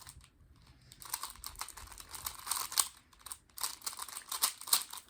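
A 3x3 speed cube being turned fast during a timed solve: a rapid run of plastic clicks and clacks as the layers turn, sparse at first and then dense from about a second in.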